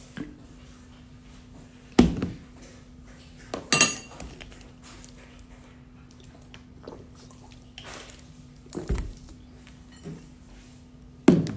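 A few separate knocks and clinks of dishes and cutlery handled during a meal at a table, the loudest about two seconds in and a brighter clatter near four seconds, over a steady low hum.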